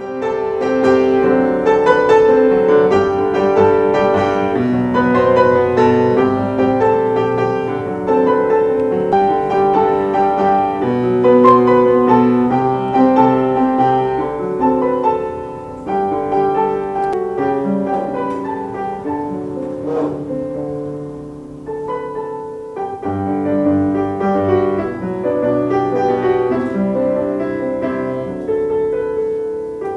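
Solo piano playing a classical-style piece, with a brief lull about two-thirds of the way through before the playing picks up again.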